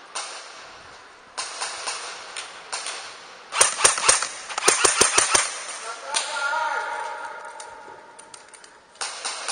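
Airsoft guns firing in a close-quarters game: scattered single shots, then a fast string of about ten sharp shots about three and a half seconds in.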